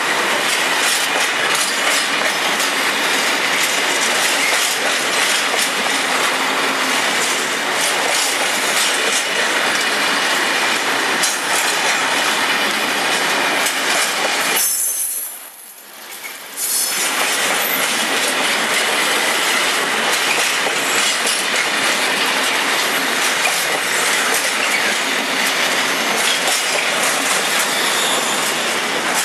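Intermodal freight train of container flat wagons rolling steadily past, its wheels running over the rails. The sound drops away for about two seconds midway, then returns.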